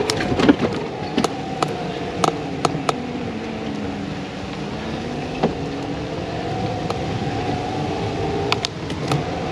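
Riding noise of a bicycle towing a caravan trailer: a steady hum that sinks in pitch about halfway through and rises again, with scattered sharp clicks and rattles.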